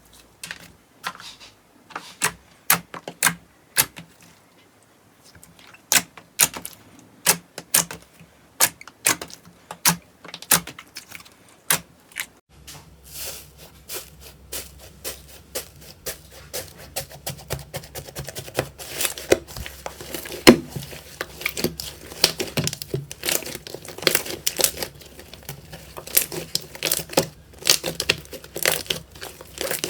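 Slime being squeezed, poked and pulled by hand, making a run of sharp clicks and pops. About twelve seconds in the background changes abruptly, as at a cut to another clip, and the clicks turn denser and crackling.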